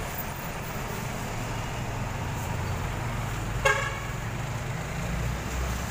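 Bus engine rumbling steadily as it drives along and away, with one short vehicle-horn toot about two-thirds of the way through.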